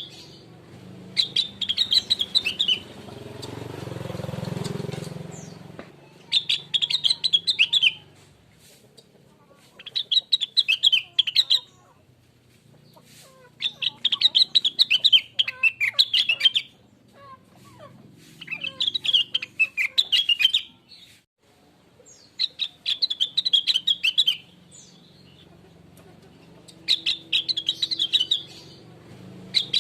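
Rengganis leafbird (cucak wilis) singing: about eight bursts of fast, jumbled high chirping phrases, each one to three seconds long with short pauses between. A low rumble swells and fades between about three and six seconds in.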